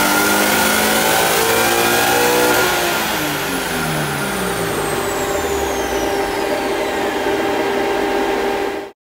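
Supercharged Subaru BRZ flat-four engine finishing a full-throttle dyno pull, its pitch rising to a peak, then lifting off about two and a half seconds in and winding down as the revs fall. A high whine falls away in pitch over the following seconds, and the sound cuts off suddenly near the end.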